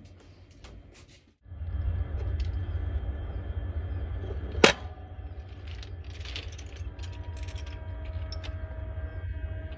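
Steady low rumble of a train, starting about a second and a half in after a short silence, with one sharp metallic clank near the middle.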